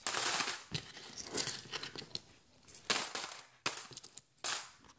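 50p coins being dropped into a pot, clinking and jingling in about five separate bursts.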